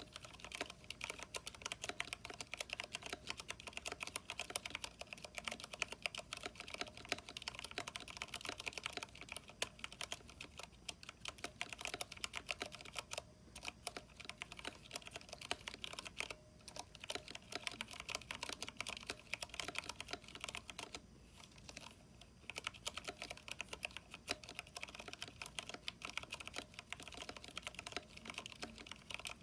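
Continuous typing on a Vortex 10th Anniversary Edition mechanical keyboard with Cherry MX Brown switches, PBT keycaps and lubed stabilizers: a dense stream of keystroke clacks with a few brief pauses, the longest about two-thirds of the way through.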